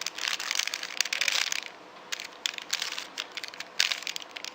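A plastic 3x3 Rubik's cube being turned by hand: its layers clicking and rattling in quick runs of moves, densest in the first second and a half, then in scattered clicks with another quick run near the end.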